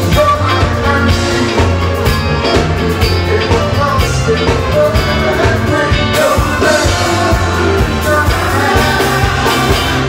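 Live soul-funk band playing, with a horn section of saxophones and trumpet, electric bass, drum kit and congas, and a male voice singing. The steady beat and bass carry under the horns.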